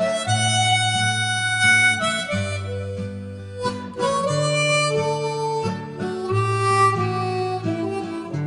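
Instrumental background music: a melody of held notes that changes pitch every half second to a second, over a lower sustained accompaniment.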